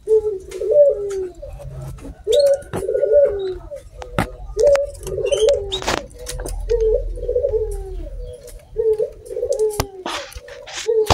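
A dove cooing over and over, low bubbling phrases one after another every second or two. A few brief high chirps and sharp clicks are mixed in.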